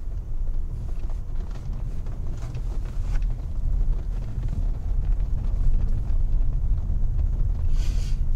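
Steady low rumble of a 2002 Lexus LS 430 on the move, heard from inside its cabin, with a few faint knocks and a short hiss near the end.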